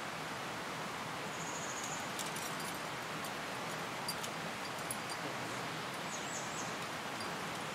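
Steady outdoor background hiss with short, high bird chirps about a second and a half in and again near six seconds, and a few faint light clicks.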